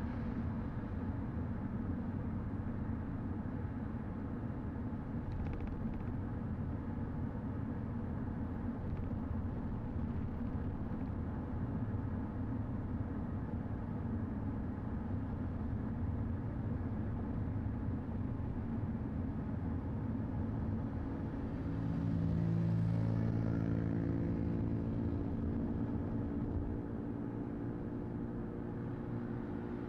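Car driving at speed on a motorway: steady road and engine rumble. About two-thirds of the way in it grows louder, with a low droning hum for a few seconds.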